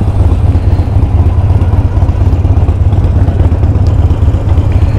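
Royal Enfield Interceptor 650 parallel-twin motorcycle being ridden: a steady, loud low rumble of wind on the microphone over the running engine.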